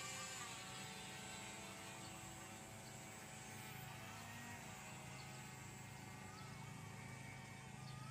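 Faint, steady hum of the electric motor and propeller of a radio-controlled paramotor in flight.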